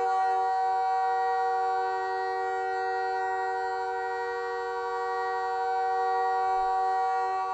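Montreal Canadiens goal horn sounding one long, unbroken blast, a steady chord of several tones, ear-piercing and car-horn-like.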